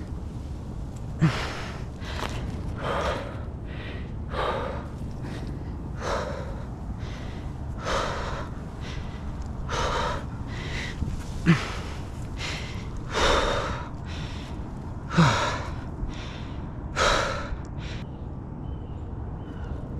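A tree climber's heavy breathing from exertion: a hard breath every second or two, a few of them sharper and louder.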